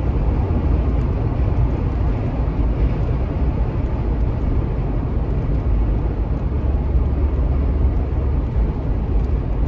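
Steady road and engine rumble heard inside the cabin of a moving car, heaviest in the low end.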